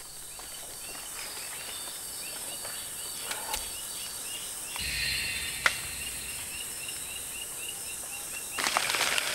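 Mantella madagascariensis frogs calling: short, high chirps repeated steadily, about three a second. Leaf litter rustles briefly about halfway through and again near the end, with one sharp click.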